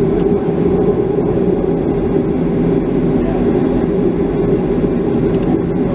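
Steady cabin noise of a Boeing 737-500 taxiing, its CFM56-3 turbofan engines humming with a low rumble, heard from inside the cabin.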